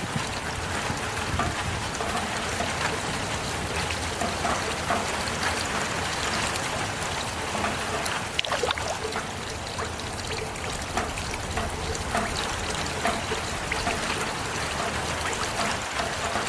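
Heavy rain falling steadily, a dense even hiss with many separate drops and drips ticking irregularly through it.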